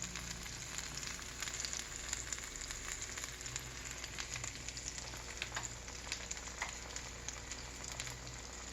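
Shredded cheese frying in a pan: a steady sizzle with many small crackling pops, over a low steady hum.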